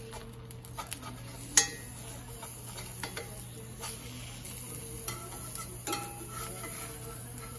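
Metal spatula scraping and clinking against a cast-iron skillet as it works under frying eggs, over a faint steady sizzle. The loudest clink comes about a second and a half in, with lighter scrapes scattered after it.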